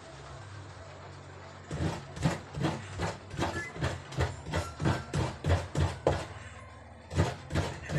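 Coconut being grated by hand on a kabayo, a bench-style grater with a serrated metal blade: rhythmic rasping strokes about two to three a second, starting a couple of seconds in, pausing briefly near the end and then resuming.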